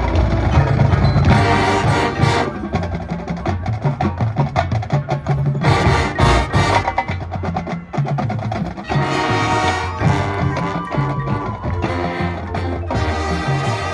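High school marching band playing its competition field show: sustained band chords under busy percussion, with sharp accented hits about two seconds in and again around six seconds.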